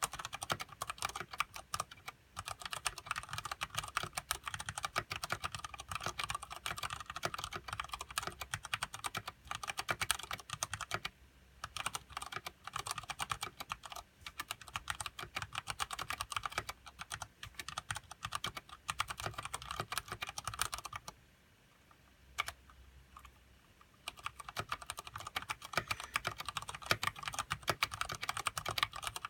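Fast continuous typing on a mechanical keyboard with Cherry MX Brown switches and thick PBT keycaps, a dense stream of key clacks. About two-thirds of the way through the typing stops for a couple of seconds, with only a few single keystrokes, then resumes.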